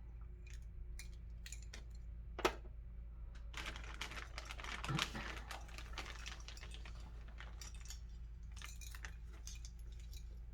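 Faint clicking and light knocking of small metal locks being handled, with one sharper click about two and a half seconds in and a busier stretch of clicks and rustling a few seconds later.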